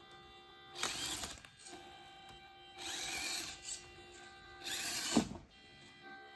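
Mini RC crawler's small electric motor and gears whining in three short bursts of throttle, about a second in, around three seconds and near five seconds; the last burst drops in pitch as it lets off.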